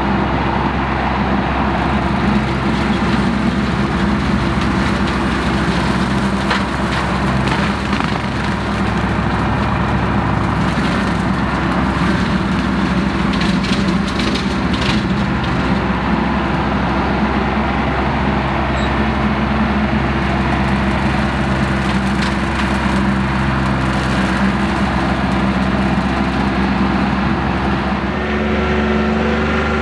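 Compact tractor's diesel engine running steadily under load while its rear brush hog (rotary cutter) mows grass and brush, with scattered sharp cracks and snaps around the middle. The sound changes shortly before the end.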